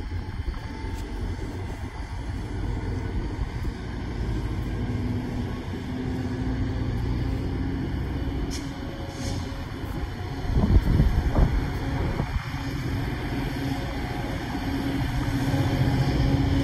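Caltrain diesel locomotive approaching the station: a steady low engine rumble and hum that grows louder toward the end, with one brief louder rumble about eleven seconds in.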